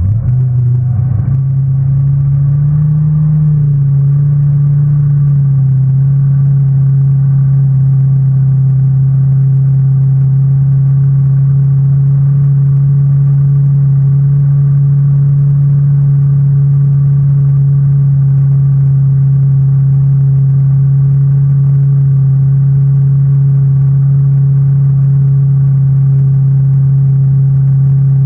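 Inboard engine of a 1997 Sport Nautique ski boat under way, pulling a surf wake. It rises slightly in pitch over the first few seconds, then holds a loud, steady drone.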